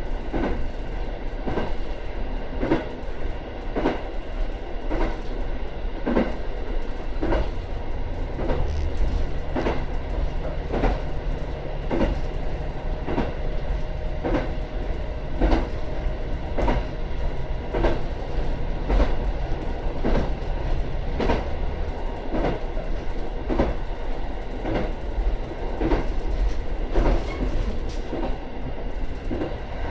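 Train wheels clacking over rail joints in a steady rhythm, heard from inside the rear cab of a moving diesel railcar. Under the clacks runs the low drone of the diesel engine, which grows stronger about seven seconds in.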